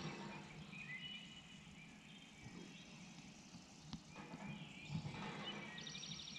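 Small songbirds calling and singing faintly in spring woods, with a rapid high trill near the end. Underneath is a low steady hum from an oil-well pump jack running on the property.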